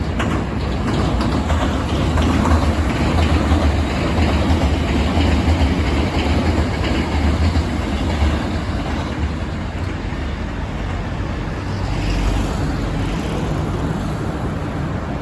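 Electric train passing close by, a continuous rumble of wheels on rails, loudest over the first half and easing off after.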